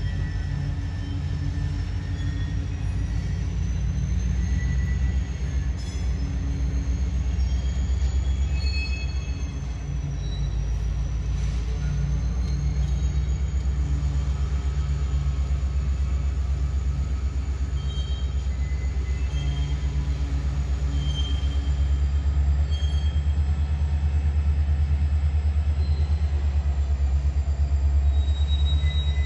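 Freight train rolling past: a steady low rumble of wheels on the rails, with short high wheel squeals here and there and a thin wavering whine above. It grows a little louder in the last third.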